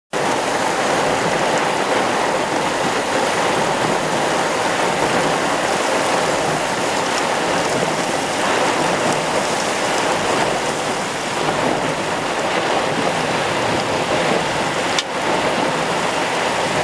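Steady rush of water from a mountain rainstorm: heavy rain and floodwater running, with one brief click about fifteen seconds in.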